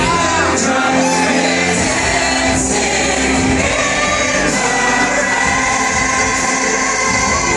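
Live pop song performance: a female lead singer over a loud backing track, with layered backing voices and long held notes.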